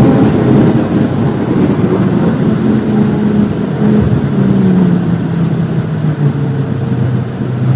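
Volvo V50 T5's turbocharged five-cylinder engine heard onboard with road and wind noise, the car slowing hard for a corner. The engine note falls steadily through the second half as the revs drop.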